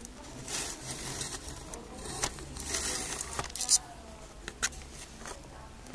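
Kitten's paws pattering and scrabbling on a wooden floor right at the microphone, with soft rustles of fur brushing past and a few sharp clicks of claws.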